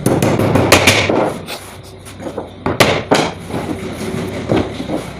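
Irregular knocking and clattering impacts: a quick run of knocks in the first second, then a few single sharp knocks about three and four and a half seconds in.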